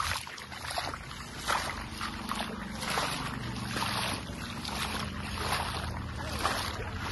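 Footsteps wading through shallow floodwater, splashing about twice a second, with wind on the microphone.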